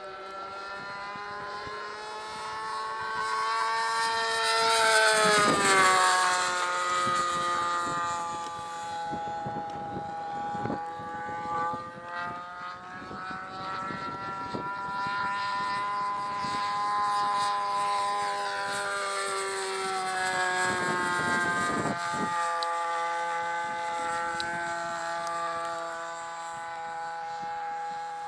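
Small engine of a radio-controlled model Hawk jet in flight, a steady high-pitched buzz with many overtones. Its pitch swings up and then drops sharply as it passes, once about five seconds in, when it is loudest, and again about twenty-one seconds in.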